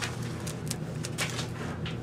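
Spoon being worked through stiff cookie dough in a mixing bowl, giving a few short, irregular scrapes and knocks over a steady low hum.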